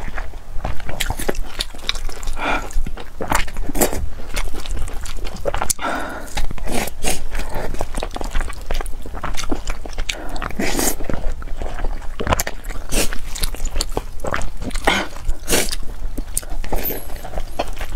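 Close-miked chewing and wet mouth sounds of a person eating braised pork belly and rice: a steady run of irregular smacks and short clicks.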